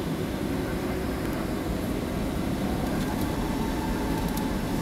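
Boeing 737-700 cabin noise while the airliner taxis onto the runway: a steady low rumble of its CFM56-7 jet engines and rolling gear, heard from inside the cabin, with a faint whine coming in near the end.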